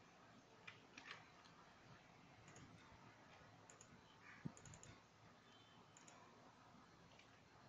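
Near silence with a few faint computer mouse clicks: two about a second in and a sharper one midway through.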